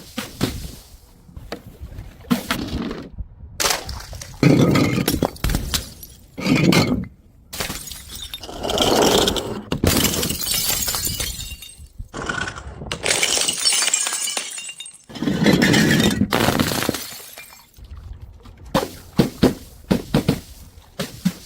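Glass bottles smashing one after another, each crash followed by shards tinkling and clattering, with sharp knocks in between.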